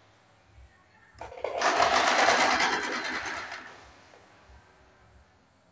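Electric sewing machine stitching a straight seam through blouse fabric in one run of about three seconds. It starts just over a second in, then slows and stops.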